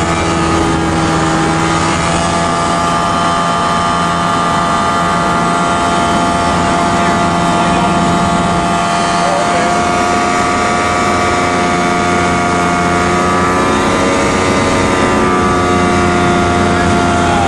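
Light aircraft's engine and propeller droning steadily, heard from inside the cabin in flight, the pitch shifting slightly a few seconds before the end.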